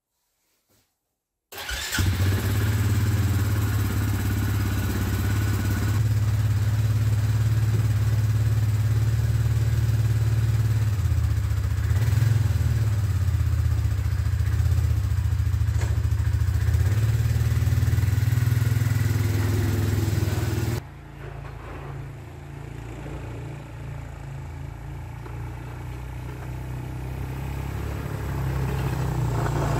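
Suzuki Eiger 400 ATV's single-cylinder engine starting up about a second and a half in and running steadily. About two-thirds through it suddenly drops to a quieter sound of the ATV running farther off, which grows louder toward the end.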